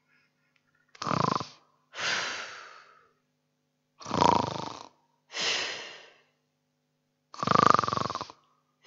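An actor snoring on purpose, playing a sleeper: three loud snores on the in-breath, each followed by a breathy out-breath, repeating about every three seconds.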